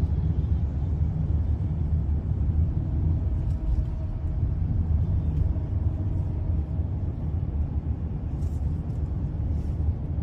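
Steady low rumble of a moving Toyota Alphard, heard inside the cabin.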